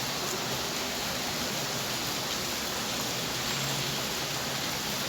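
Heavy rain falling steadily, an even hiss of downpour with no thunder.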